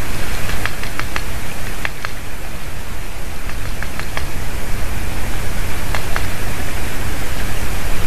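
Steady wind noise buffeting an outdoor webcam microphone, heaviest at the low end, with a few faint short ticks scattered through it.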